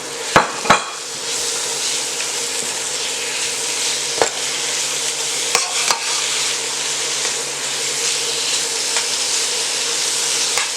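Raw chicken pieces sizzling as they fry in hot oil and red curry paste in a pan; the sizzle swells about a second in and stays steady, with a few clicks of a utensil against the pan.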